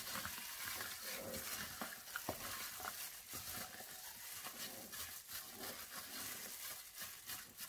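Raw chicken wings being mixed by hand, in a thin plastic glove, through a thick ketchup-based marinade in a bowl: continuous wet squishing and plastic rustle, with many small crackles.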